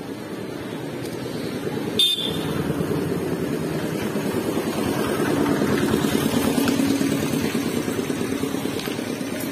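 Engine of a passing motor vehicle, a low rapid throb that builds to its loudest around the middle and then eases off, with a short horn toot about two seconds in.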